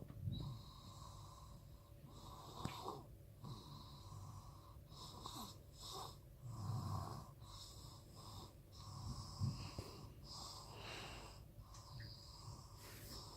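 Snoring, not really loud: breath after breath of soft, uneven snores in a sleeping person's or animal's airway.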